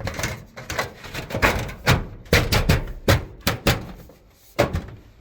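Irregular sharp knocks and thuds, about seven over three seconds, as a corner trim piece is slid up and knocked into place before being screwed.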